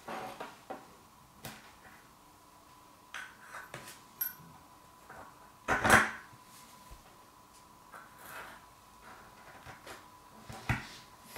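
Small steel knife parts handled on a wooden workbench: light clicks, taps and scrapes as a Mora knife's bolster and wooden handle are fitted onto the blade's tang, with a sharper knock about six seconds in and another near the end.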